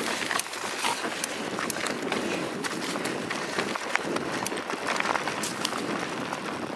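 Mountain bike rolling over a dirt woodland trail, picked up by a camera mounted on the bike: steady tyre and wind noise with frequent sharp clicks and knocks as the bike rattles over bumps.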